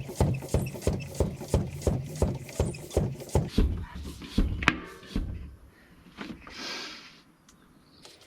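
Track pump worked in quick regular strokes, about three a second, inflating a tubeless mountain bike tyre to higher pressure to seat its bead on the rim. The strokes stop after about four and a half seconds with a sharp click, and a short hiss follows.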